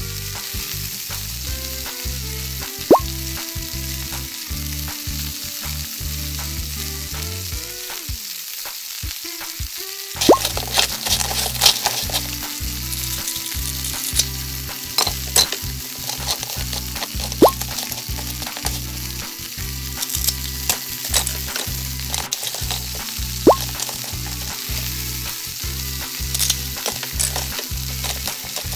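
Frying sizzle with a plastic spatula clicking and scraping through plastic beads and toy vegetables in a plastic toy frying pan, over background music with a steady repeating beat.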